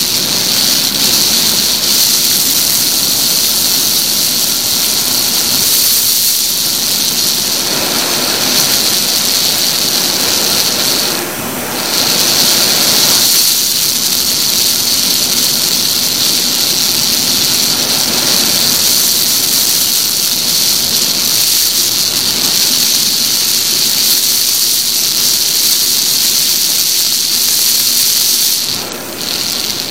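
Loud, steady wind rush over a helmet-mounted action camera on a moving motorcycle, with the motorcycle's engine running faintly underneath. The rush drops away briefly about eleven seconds in and again near the end.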